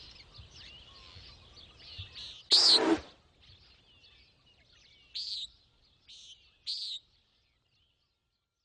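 Common nighthawk giving its short, nasal peent call several times. The loudest is about two and a half seconds in, with softer ones near the end, over faint chirping of other birds.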